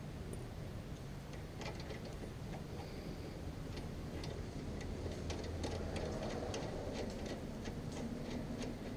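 Light clicking from hand tools at work on a car's lower shock absorber mount. The clicks start about one and a half seconds in and settle to about three a second in the second half.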